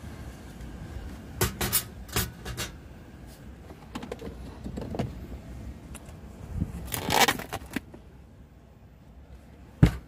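Metal tongs, scissors and a ladle clinking and clattering as they are handled and set down on a metal tray, with a few quick rattles early on and a longer scraping rustle about seven seconds in. A single sharp knock near the end is the loudest sound.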